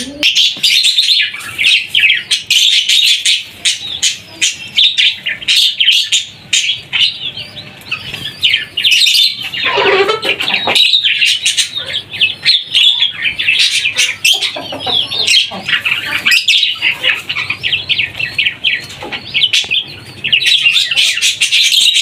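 Many small aviary birds chirping and chattering without pause, a dense tangle of rapid high chirps. About ten seconds in, a louder, lower call stands out above the chatter.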